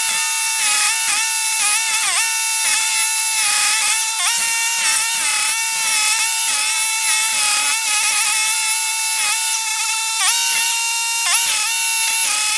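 Toro STX-38 stump grinder running at full throttle with its cutting wheel chewing into a stump below grade: a loud, high-pitched machine whine that keeps dipping in pitch and recovering as the wheel bites and the engine takes load.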